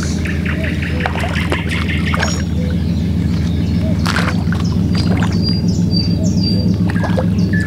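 Small birds chirping and calling in short, quick notes over a steady low hum that grows slightly louder.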